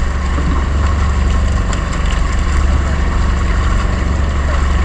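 Fishing boat's engine running steadily: a loud, even low drone under a noisy haze.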